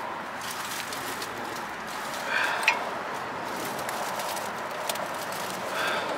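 Hand wrench tightening a nut on a car's suspension: a few scattered metallic clicks and scrapes, the sharpest a little under three seconds in, over a steady background hiss.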